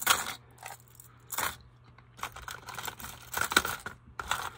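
Hard plastic crankbaits and their treble hooks clicking and rattling against each other as a tangled bunch is handled. A few separate sharp clacks come first, then a quicker run of small clicks and jangles in the second half.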